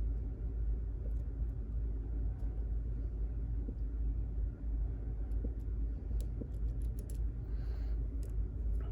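Faint clicks of a lock pick working the pins of a pin-tumbler lock during single-pin picking, a few scattered and then several in quick succession near the end, over a steady low hum.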